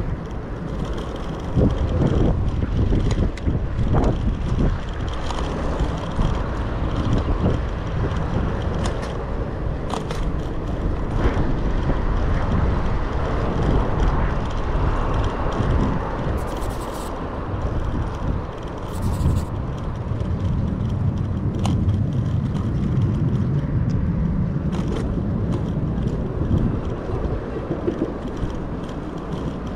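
Cycling along a busy city road: a steady low rumble of wind on the microphone mixed with passing car traffic, with occasional clicks and rattles from the bicycle and two brief hisses in the second half.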